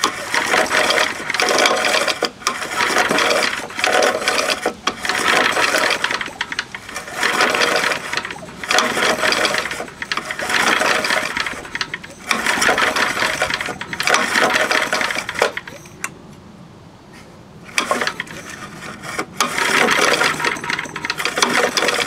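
The recoil starter of a 2 hp Briggs & Stratton 'Golden Boy' engine being pulled again and again, spinning the engine over with its spark plug out in about a dozen quick bursts of a second or so each, with a short pause about two-thirds of the way through. This is a spark check, and the plug gives no spark.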